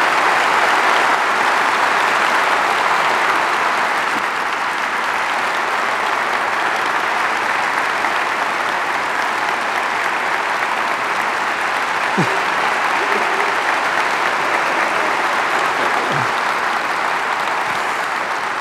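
A large congregation applauding, a steady sustained clapping that eases slightly after about four seconds and begins to die away near the end.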